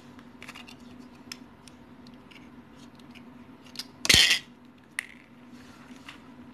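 Hands working electrical wire with a wire cutter: light clicks and rustles of the wire and tool, and one loud, short scrape with a thud about four seconds in.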